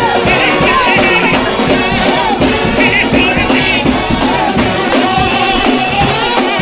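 Trombone-led shout band playing a gospel hymn over a drum kit, the horns' sustained wavering notes carrying the melody.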